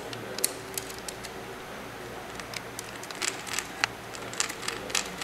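Scattered small clicks and taps of a screwdriver and looped copper wire at a duplex receptacle's silver terminal screw as the neutral wire is attached and tightened, over a faint steady hum.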